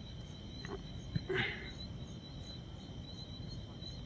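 Crickets chirping steadily, a high pulsing trill over a low background rumble. About a second and a half in there is a short knock followed by a brief louder sound.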